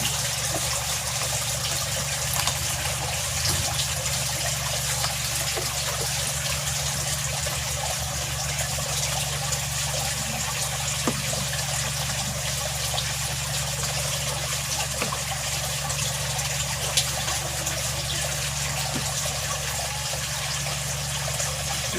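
Steady trickling and splashing of aquarium water with a low, steady hum underneath.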